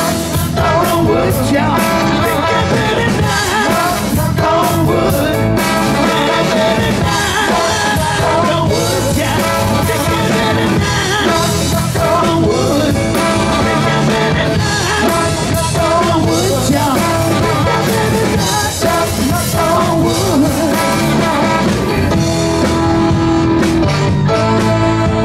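Live rock band playing with a male lead vocal over electric guitars, keyboard, drums and horns.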